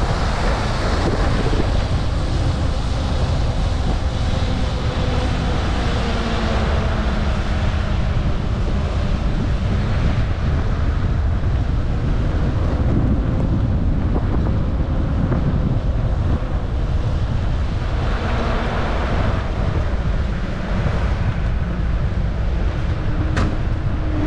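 Steady wind buffeting the microphone of a moving bicycle, over road and traffic noise from wet streets in the rain. There are faint passing engine tones, and a single sharp click near the end.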